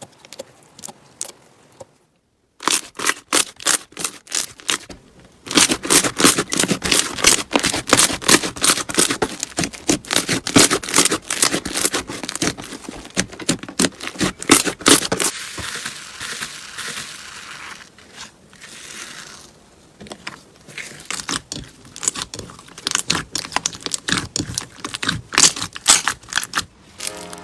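Slime being squeezed and pressed by hand, giving a fast, dense run of crackling pops and clicks, like crunchy slime. The sound breaks off briefly about two seconds in.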